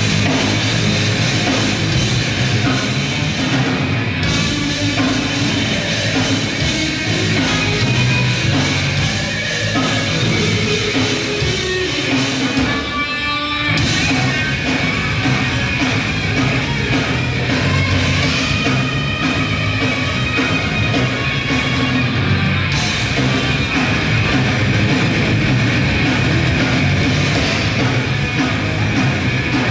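Grindcore band playing live: loud distorted guitars and drums. About halfway through the music drops out for roughly a second, leaving a ringing tone, then comes back in at full volume.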